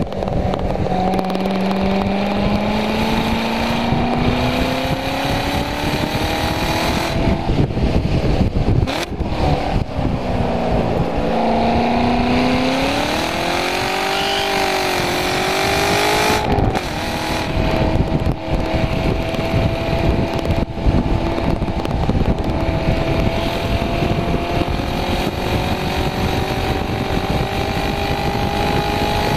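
Chevrolet Corvette C7 Grand Sport's 6.2-litre LT1 V8 heard from inside the cabin under hard acceleration on track. The engine note climbs, dips and climbs again, with a few short breaks where it drops out, then pulls steadily and slowly rises near the end, over wind and tyre noise.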